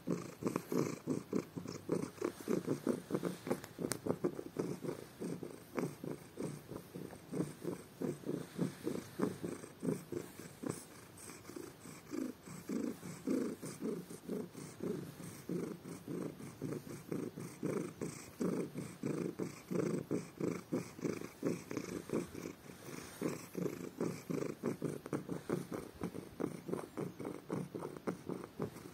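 Domestic tabby cat purring loudly in a steady pulsing rhythm while its ears are rubbed, a sign of its pleasure.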